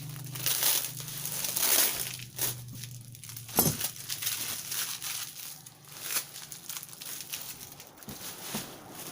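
Packaging crinkling and tearing as a boxed mini sewing machine is unwrapped: irregular rustles with a sharp crackle about three and a half seconds in, over a low steady hum for the first few seconds.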